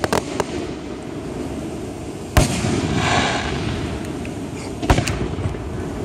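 Aerial fireworks bursting: a few sharp bangs just after the start, the loudest about two and a half seconds in followed by a brief fizzing hiss, and two more bangs close together near the end.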